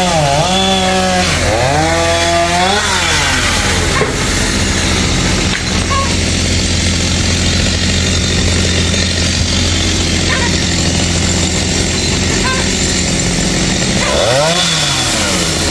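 Chainsaw revving up and down a few times, then running steadily for about ten seconds as it cuts into the tamarind wood, and revving up and down again near the end.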